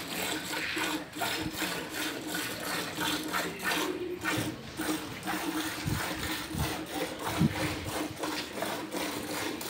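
Hand milking a Holstein dairy cow: alternating squirts of milk hit a metal pail in a quick, regular rhythm.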